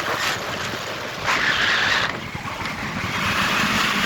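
Road and wind noise from a moving vehicle: a steady rushing hiss that swells for a moment about a second in.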